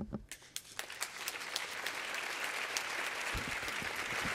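Audience applauding in a lecture auditorium, the clapping building up over the first second and then holding steady. A few low thuds sound about three and a half seconds in.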